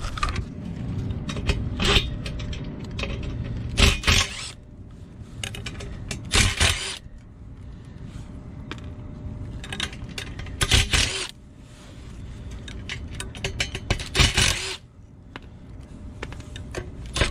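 Screws being taken out of a fan motor mount: several short bursts of tool and metal rattling, about five in all a few seconds apart, with clinks of loose metal between.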